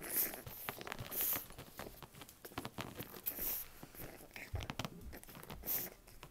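Boston terrier puppy pawing and scrabbling at a person's legs: a busy run of quick scratches, claw clicks and rustles of cloth.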